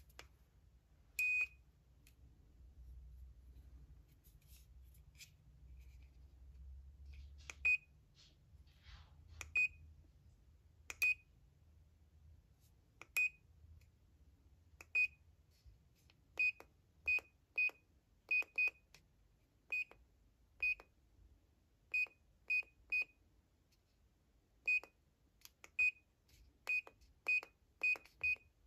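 ANLAN multipolar radiofrequency facial device beeping at each button press as it is switched on and its modes are cycled: about twenty short, high single beeps at irregular intervals, sometimes several in quick succession.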